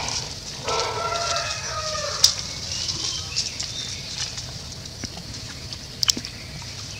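A drawn-out, wavering animal call lasting about a second and a half, starting just under a second in, over dry leaves rustling and sharp clicks, the loudest about two seconds and six seconds in, with a steady high hiss behind.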